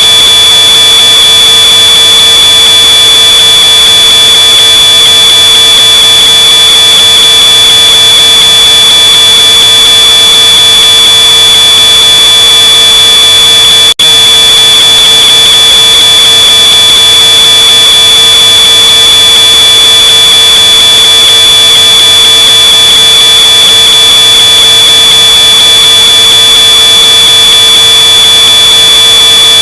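Smoke alarm sounding one continuous high-pitched tone, boosted so loud that it is heavily distorted, with a momentary break about halfway through.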